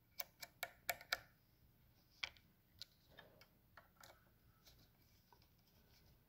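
Faint, sharp metallic clicks of a screwdriver working a small screw on a metal drill-bit sharpening jig: a quick run of about five clicks in the first second or so, then scattered single ticks that fade out a little past the middle.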